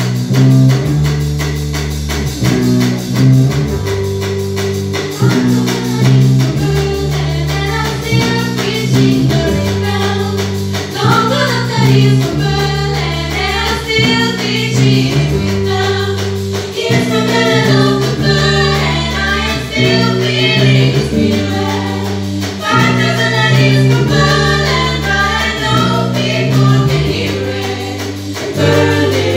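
Live band (drum kit, electric bass, electric guitar and piano) playing an upbeat jazz-fusion tune built on a repeating bass riff. A group of female voices sings in harmony over it from about eight seconds in.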